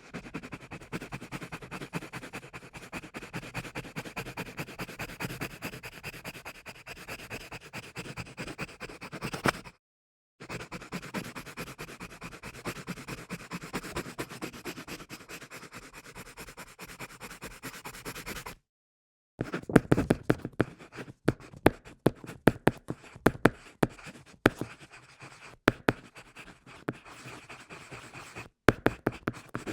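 Pencil scratching on paper: two long stretches of steady rapid scribbling with a short break between, then after a pause a run of separate quick strokes and taps of the lead on the paper.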